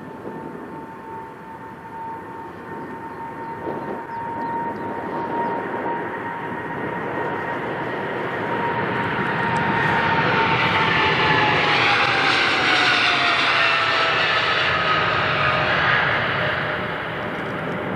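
Jet airliner passing close by: its engines' steady whine grows louder, then slides down in pitch as the aircraft goes past, loudest about two-thirds of the way through.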